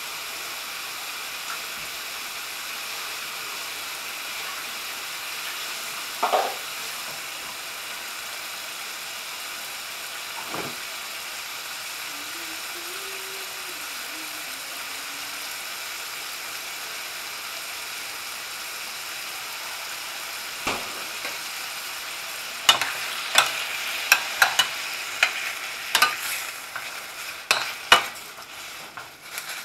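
Diced pork chop pieces sizzling steadily in a hot stainless steel skillet. There is a single knock about six seconds in. From about 23 seconds in, a utensil stirs the meat, clinking and scraping against the pan.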